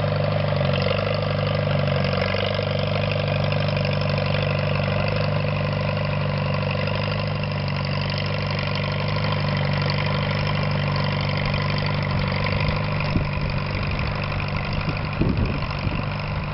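Small gasoline farm tractor engine running steadily while pulling a disc plow, with a few sharp clunks near the end.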